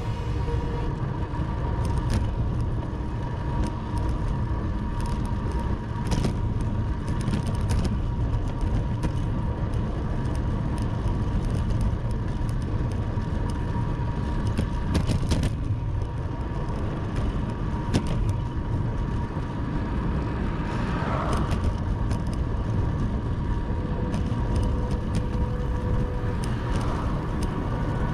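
Wind rushing over the microphone and road noise from a moving bicycle, with scattered small clicks.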